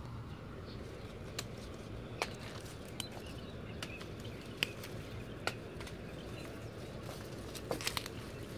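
Lima bean pods being picked by hand off tangled vines: scattered sharp snaps and clicks of stems breaking, with rustling of stems and leaves, over a steady low background hum.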